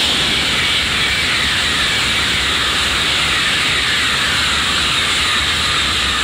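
Shinkansen bullet train running through the station at high speed: a loud, steady rush of wheel and wind noise that cuts off suddenly near the end as the train clears.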